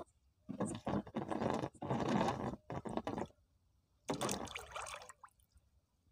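Breaths drawn and blown through a garden hose held in the mouth, several noisy rushes of air in the first three seconds, then one more about four seconds in just before he ducks under the water.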